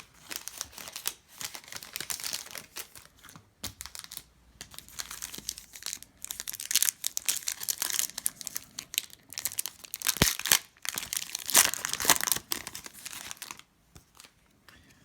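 Foil trading-card pack wrapper crinkling and tearing as it is ripped open and handled in a run of crackly rustles, dying away near the end.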